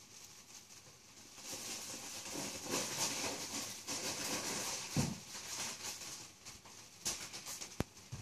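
Crinkly rustling of a plastic bag of pasta being handled, starting about a second and a half in and running for several seconds, with a dull thump about five seconds in and a sharp click near the end.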